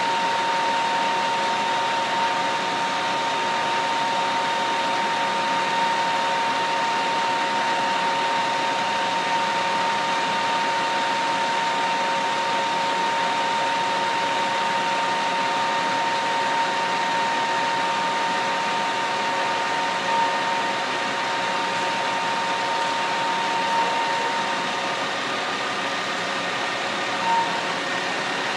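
Steady mechanical drone of running work-site machinery, such as idling trucks and crane equipment, with a constant high whine over it. A few faint brief knocks come near the end.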